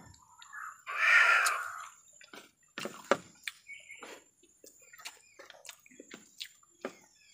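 A person eating with their hands: wet lip-smacking and chewing with short clicking mouth sounds, plus a louder, second-long breathy hiss about a second in.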